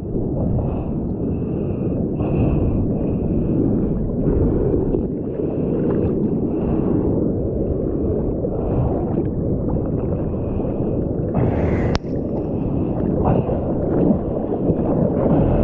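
Seawater sloshing and splashing around a bodyboard and the action camera's waterproof housing, a steady low rush with a sharper splash about twelve seconds in.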